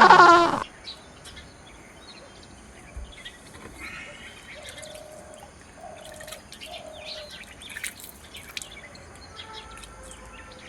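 A loud pitched sound cuts off abruptly just under a second in. After it comes quiet outdoor ambience with birds calling faintly: scattered short chirps, and three short low calls about midway.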